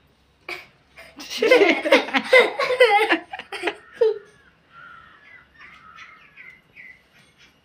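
Children laughing hard for about three seconds, starting about a second in, then birds chirping softly in the background.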